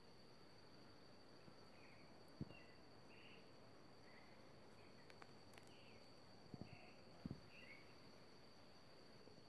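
Near silence: faint outdoor ambience with a steady high insect drone and a few faint bird chirps in the middle. Three soft low thumps, about two and a half, six and a half and seven seconds in, are the loudest sounds.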